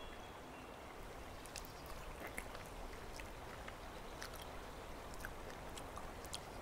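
Faint steady background hiss with scattered small, sharp clicks.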